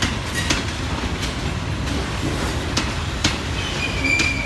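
A passenger train rolling slowly through the station, with a steady low rumble and irregular sharp clacks from its wheels crossing rail joints.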